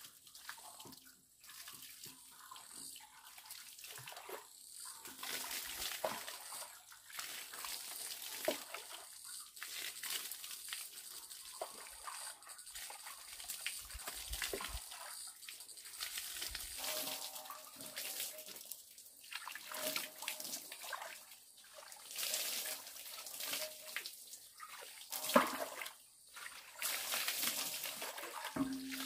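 Water sloshing and splashing in uneven spurts, with scattered small knocks and brief pauses between.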